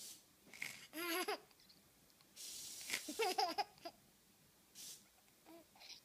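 Infant babbling and giggling in short pitched bursts, about a second in and again around three seconds in, with a brief hiss just before the second burst.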